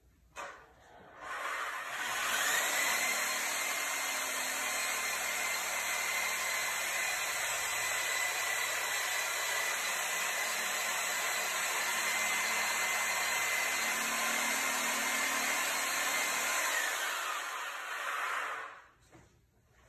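Small handheld power tool running steadily with a high whine while cutting the arm off a clay sculpture at the shoulder; it spins up about a second in and winds down near the end.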